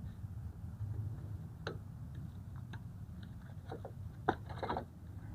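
Scattered light metallic clicks and taps as drum brake shoes and their spring hardware are worked loose by hand, with a quick cluster of clicks a little past the middle. A steady low hum runs underneath.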